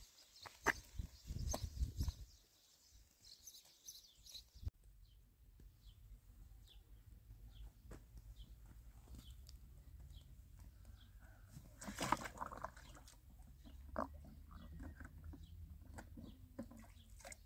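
Footsteps crunching on stony ground for the first few seconds. Then a small bird calling with short high chirps over and over above a faint low rumble, with a louder scuff or clatter on stones about two-thirds of the way through.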